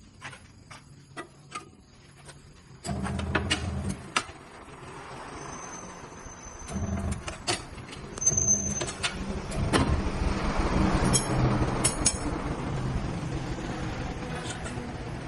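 Sharp metallic knocks and clanks from tools at work, with a motor running at a low steady pitch from about three seconds in. The motor grows louder and noisier in the second half, with a few more knocks.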